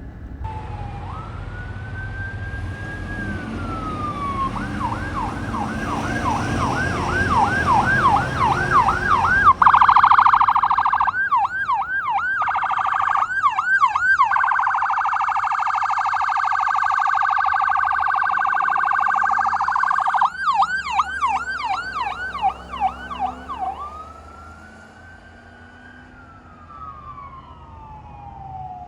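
Electronic emergency-vehicle sirens on a responding ambulance and fire engine, cycling through a slow rising and falling wail, a fast yelp of about two to three sweeps a second, and a rapid warble. The sirens grow louder to a peak about ten seconds in and fade away after about twenty-four seconds, ending on a slow wail. A low engine rumble lies under the first ten seconds.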